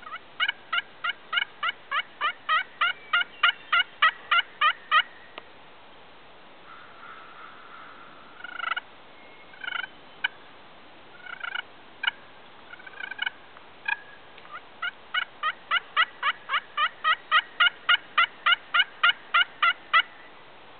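Turkey yelping: a long run of rapid, evenly spaced yelps, about four a second, then a few scattered short notes, then a second long run of yelps.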